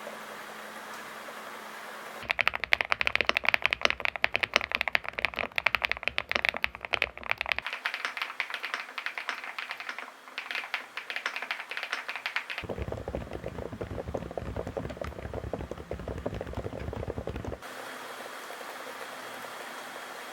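Rapid typing on an ABKO A87K mechanical keyboard, in three stretches of about five seconds each with a different tone, the last one deeper and more muffled.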